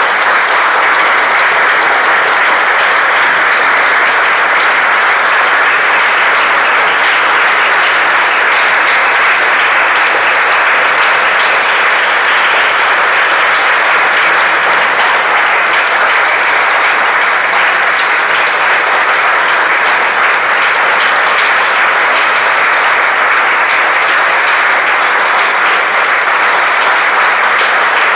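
Audience applauding steadily at the end of a performance, a dense, even round of clapping.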